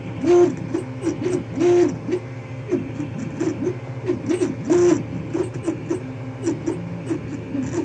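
Creality CR-10S 3D printer's stepper motors whining as the print head moves, in quick short tones that slide up and down in pitch, with three longer, louder held notes, over a steady hum from the printer's fans.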